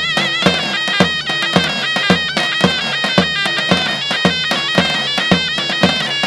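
Zurna and davul playing an Erzurum folk-dance tune: a shrill reed melody that wavers in pitch over steady bass-drum beats, about two a second.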